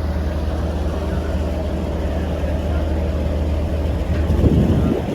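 Ferry boat's engine running with a steady low drone, heard from aboard the vessel. About four seconds in, a louder rush of noise rises briefly over it.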